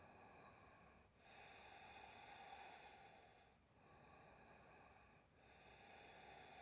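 Faint, slow breathing in long, even in- and out-breaths, each a second and a half to two and a half seconds long, with brief pauses between them: steady yoga breath held in a pose.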